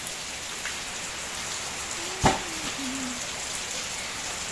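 Steady rain falling and pattering on surfaces. A single sharp knock sounds about two seconds in, the loudest moment.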